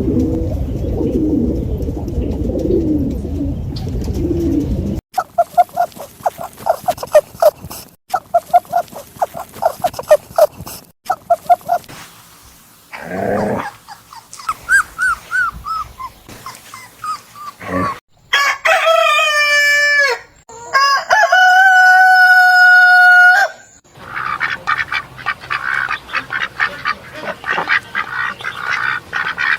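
A run of short animal-call clips, mostly poultry. It opens with a low rumbling call, then chicken clucks repeated quickly, a few chirps, and a long rooster crow in two parts past the middle. It ends with a fast, rattling series of calls.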